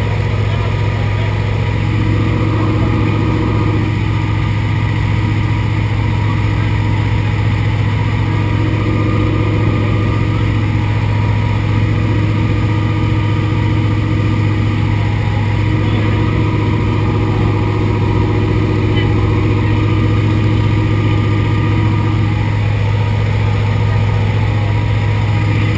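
Antonov An-2's nine-cylinder radial engine and propeller droning steadily at cruise, heard from inside the cabin in flight.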